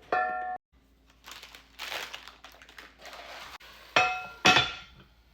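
Metal baking pot and lid clinking, scraping and rustling as the loaf goes into the oven, ending in two loud ringing metal clanks about half a second apart.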